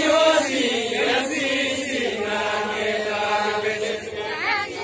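Deuda folk song of Far-Western Nepal: a group of voices singing together in a chant-like style, with held notes and no instruments.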